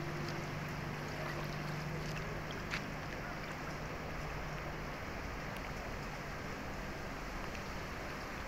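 Steady rushing noise of wind and water over a flooded road, with a low steady hum that fades out about halfway through and a single sharp tick about a third of the way in.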